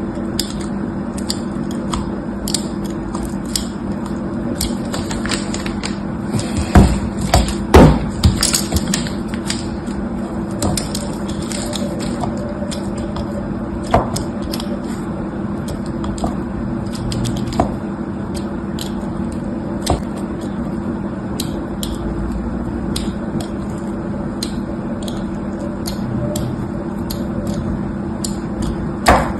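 Close-up handling noise: scattered small clicks and taps, with a few louder knocks about seven to eight seconds in, over a steady low hum.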